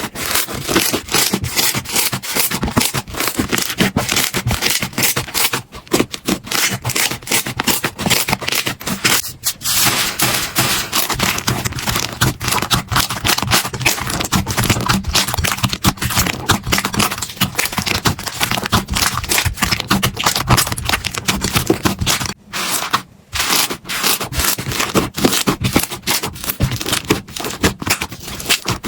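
Slime being pressed and squeezed by hand, giving a dense, rapid crackling and popping with rubbing and scraping, broken by two brief pauses about three quarters of the way through.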